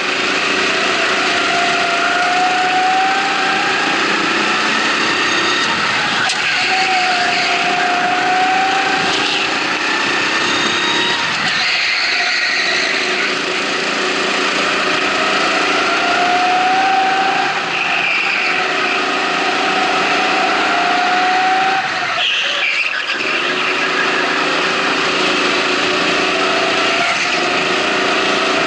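Racing kart's motor under way, its pitch rising along each straight and dropping off as it slows for the corners, about every four to six seconds, over steady wind and road rush.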